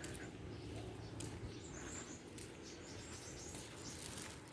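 Faint, quiet outdoor ambience with a few short bird chirps, one of them about a second in.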